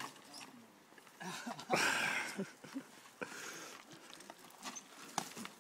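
Mountain bike rolling and braking over loose dirt and rock on a tight switchback: scattered clicks and knocks from the tyres and bike, with a louder burst of noise about two seconds in.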